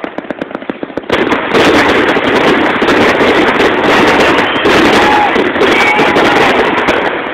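Fireworks firing in rapid succession: a quick run of sharp crackling pops, then from about a second in a dense, continuous barrage of bangs and crackle that eases off near the end.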